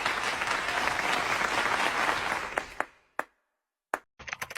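Applause, a dense patter of clapping that fades out about three seconds in. A couple of single clicks and then a run of rapid tapping clicks follow near the end.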